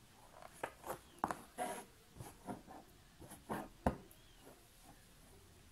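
Embroidery needle and thread being pulled through fabric stretched taut in an embroidery hoop: a string of short, faint scratches and pops, the sharpest about four seconds in.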